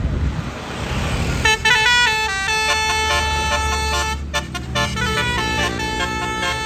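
Tour bus's basuri telolet horn playing a melody of held notes in stepped pitches, starting about a second and a half in. The bus's engine runs underneath.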